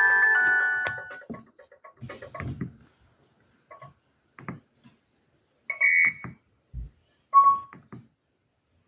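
Alcatel OneTouch 2010X phone: a polyphonic ringtone stops about a second in, followed by faint clicks of handling and key presses and two short electronic beeps, the first higher-pitched and the second lower.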